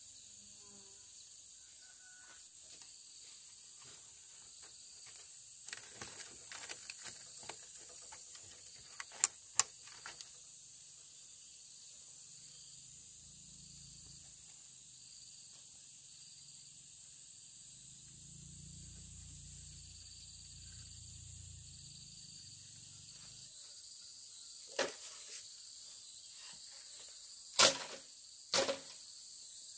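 Steady, high-pitched chorus of insects such as crickets. Scattered sharp clicks and knocks come through it, a cluster near the middle and the loudest two near the end, with a faint low rumble for a few seconds after the middle.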